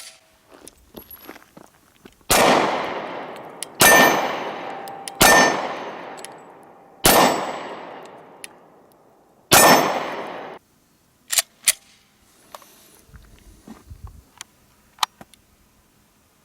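Five .40-caliber shots from a Glock 23 Gen 4 pistol, spaced about one and a half to two seconds apart, each echoing away. A steel target plate rings after some of the hits. A few light clicks follow.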